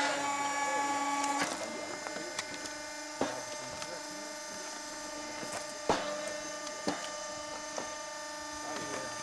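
Electric vertical log splitter's motor humming steadily. For the first second and a half it runs under load with wood cracking and splintering as the ram splits a log; after that come a few sharp knocks of split wood being handled against the machine.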